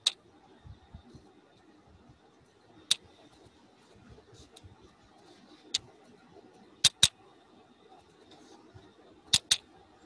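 Sharp computer mouse clicks, single and in quick pairs, about seven in all, over faint steady room noise.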